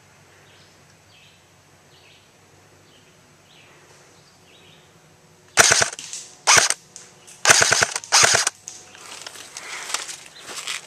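Airsoft gun firing close by: four short full-auto bursts of rapid shots in quick succession, a little past halfway through.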